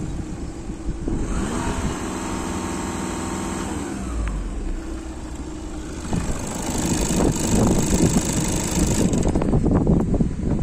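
VW 2.0 TDI CBAB four-cylinder common-rail diesel engine running, held at raised revs from about one to four seconds in before dropping back to idle. Near the end it is louder, with an irregular diesel clatter.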